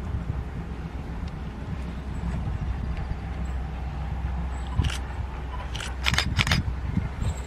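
Steam locomotive moving slowly in the distance: a steady low rumble, with a run of five short sharp bursts about five seconds in.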